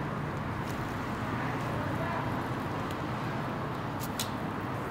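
Steady street background noise from an open-air grill, with a few faint sharp clicks, two of them close together near the end.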